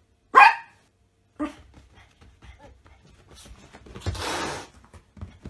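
A short, sharp animal cry about half a second in and a fainter one a second later, then a white cat hissing for about half a second as it lunges at a small dog.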